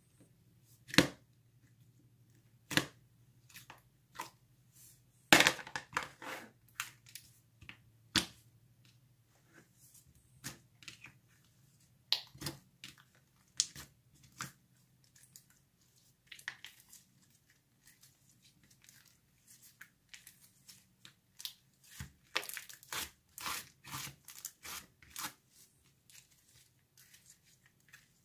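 Creamy clay butter slime being poked, pressed and stretched by hand: irregular sticky pops and clicks, busiest about five seconds in and again for a few seconds past the twenty-second mark, over a faint low hum.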